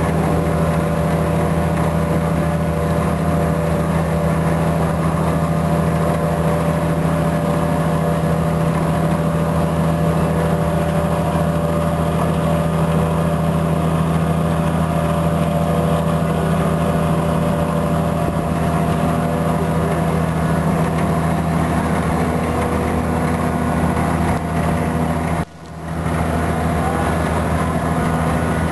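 A boat's engine running steadily, a low hum made of several steady tones over a wash of noise, with a brief dropout about 25 seconds in.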